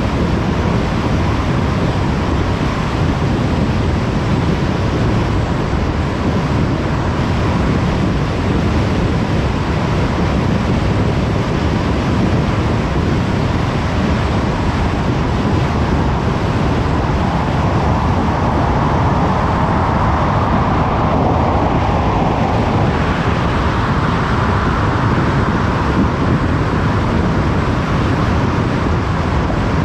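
Car driving at speed on a motorway: steady road noise of tyres and wind, with a slight swell a little past the middle.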